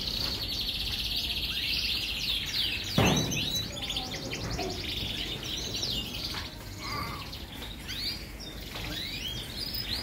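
Many caged domestic canaries singing at once in full song, a dense tangle of fast trills and chirps. A single sharp knock sounds about three seconds in.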